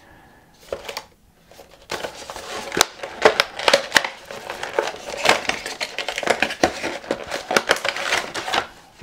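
Cardboard fan box being handled and opened: quiet for about two seconds, then continuous rustling and scraping of cardboard with many small clicks.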